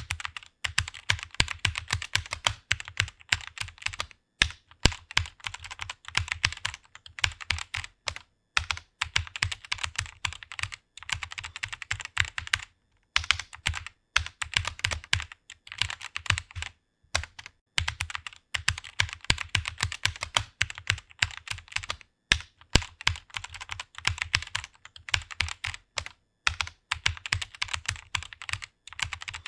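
Fast typing on a computer keyboard: rapid key clicks in runs of several seconds, broken by brief pauses.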